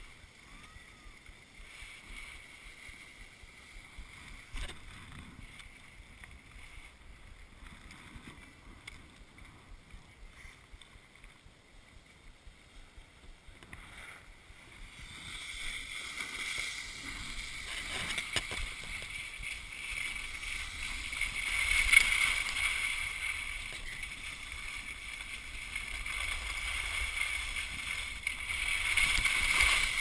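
Skis sliding and scraping over packed snow. The hiss is faint at first and grows louder and rougher from about halfway, with a sharp scrape about two-thirds of the way in.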